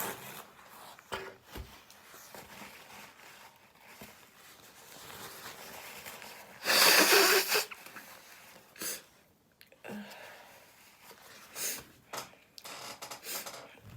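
One loud sneeze about halfway through, about a second long, with a few quieter sniffs after it. The sneezing is set off by dust from cleaning a dusty room.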